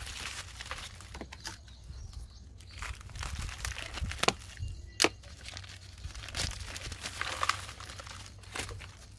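Thin black plastic nursery bag crinkling and tearing as it is pulled off a snake plant's root ball by hand, with two sharp snaps about four and five seconds in.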